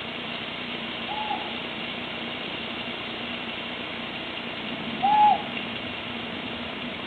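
Tawny owl calling: two short, arched hoots about four seconds apart, the first faint and the second louder. Behind them is a steady hiss.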